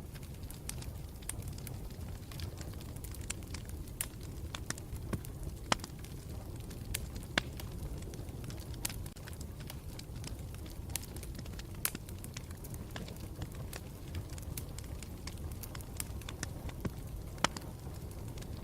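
Campfire burning with a steady low rumble and irregular crackles, with sharper pops every few seconds.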